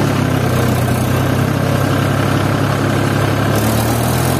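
Tractor's diesel engine running steadily under way, heard close up from the driver's seat.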